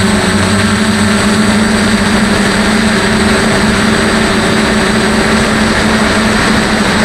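DJI F450 quadcopter's electric motors and propellers buzzing at a steady pitch in flight, picked up close by the camera mounted on the craft.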